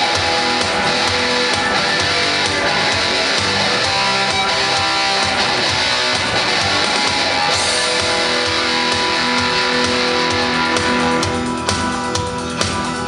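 Guitar playing a lead part over a rock backing track with drums and bass. The full sound thins out and drops a little in level about eleven seconds in, leaving sharper drum hits.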